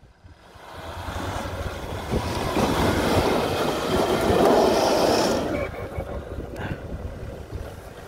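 Jeep Grand Cherokee powering up a steep muddy hill, engine revving hard and tyres spinning in the mud. It builds to its loudest about four to five seconds in, then eases off as the Jeep bogs down short of the top, mixed with wind noise on the microphone.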